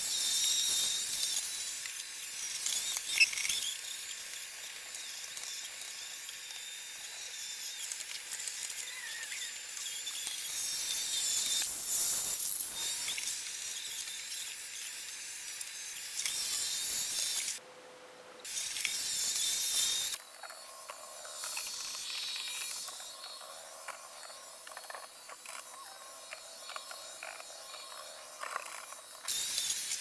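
iRobot Roomba 870 robot vacuum running, its motor and brushes making a steady, mostly high-pitched mechanical whir. The sound drops out or changes abruptly several times.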